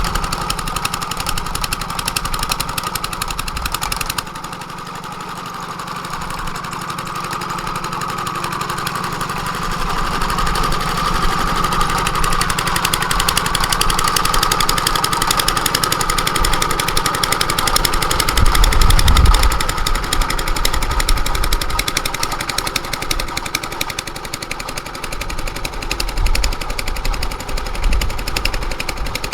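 Engine running with a rapid, even knocking beat. It drops in level about four seconds in, builds gradually to a peak with a deep rumble about two-thirds of the way through, then eases off.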